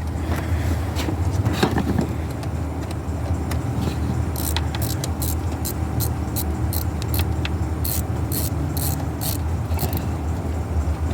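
Socket ratchet turning out an intake hose clamp screw, a run of short metallic clicking strokes about two or three a second through the middle, over a steady low hum.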